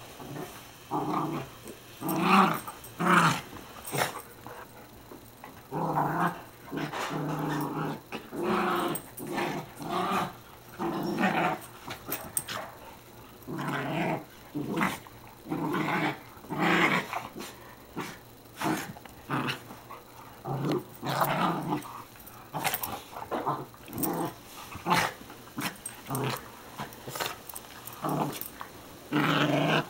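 Two dogs wrestling in rough play, with repeated growls: short growling bursts about once a second, some louder than others, with brief pauses between.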